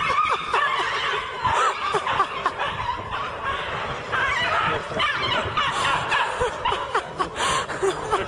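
People laughing and snickering, a continuous stretch of overlapping laughter.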